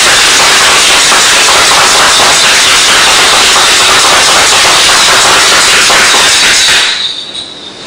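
Loud, steady rushing noise with no tone or beat. It cuts in abruptly and stops about a second before the end, leaving quieter room sound.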